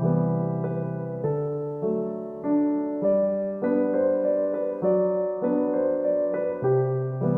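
Background music: a gentle electric-piano melody, notes changing about every half second with a steady low bass.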